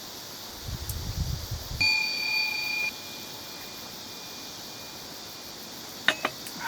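Steady chirring of insects, with a single bright metallic ring struck about two seconds in that dies away over a few seconds. A few sharp clicks near the end.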